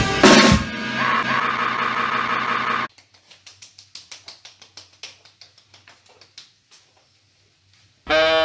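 Loud band music with drums that cuts off abruptly about three seconds in. A quiet stretch of faint, scattered light clicks and knocks follows. Music with sliding pitched notes starts again near the end.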